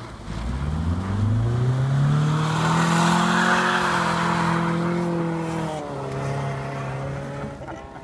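Honda Civic Shuttle rally car's B20 VTEC engine revving hard under acceleration, its pitch rising over the first two seconds and holding high, with a hiss of snow spraying from the tyres as the car slides past in the middle. The engine pitch drops once about six seconds in, then holds steady as the car pulls away.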